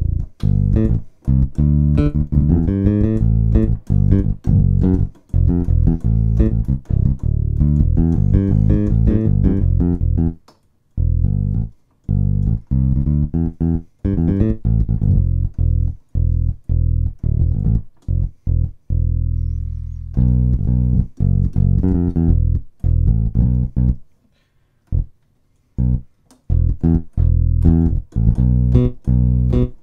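Electric bass guitar sound played from a hammer-action MIDI keyboard controller: a busy left-hand bass line of quick plucked-sounding notes, with a couple of short pauses.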